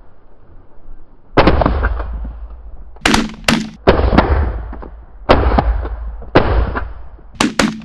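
A volley of shotgun fire from several hunters shooting at ducks overhead: about nine shots over six seconds, some in quick pairs, each trailing off in a long echo.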